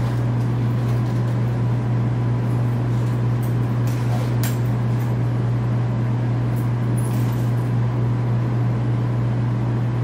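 Room air-conditioning unit running with a steady low hum and an even rushing noise, with a few faint ticks over it.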